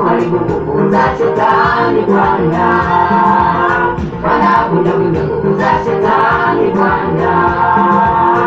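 A group of voices singing a gospel praise song together over a steady beat.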